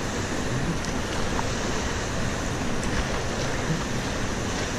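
Steady rush of a river rapid's whitewater, heard from a kayak floating in the churning water just below it.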